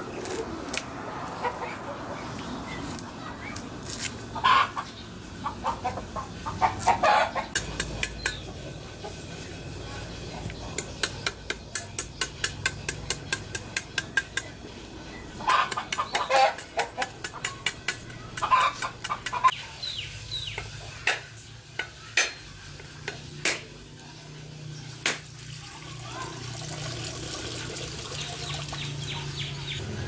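Sharp, rapid knocks of a cleaver's back striking the shell of a husked coconut to crack it open, about three to four knocks a second at first, then sparser. Chickens cluck and call loudly at times over the knocking.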